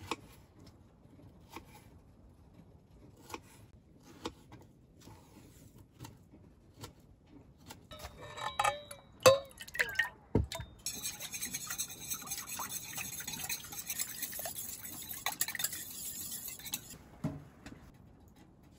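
Kitchen sounds of crepe batter being made: scattered light taps at first, then clinking and pouring against a stainless steel mixing bowl. After that comes about six seconds of steady hiss that stops abruptly.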